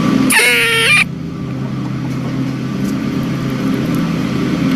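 Gray squirrel alarm call: harsh, nasal calls that slide down in pitch, one near the start and another just after, about four seconds apart, over a steady low hum.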